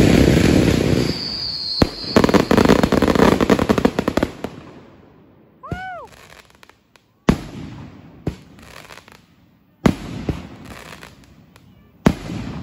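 Consumer fireworks going off. A loud blast opens it, followed by a dense rapid crackle. Then come a short whistle that rises and falls, and four separate sharp bangs spaced a second or two apart, each with a fading echo.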